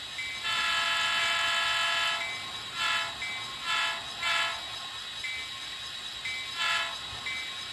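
Onboard DCC sound decoder of a Bachmann N-scale SD45 model locomotive blowing its diesel horn through the model's speaker: one long blast starting about half a second in, then four short toots. Under it runs the decoder's diesel engine sound, with a bell ringing about once a second.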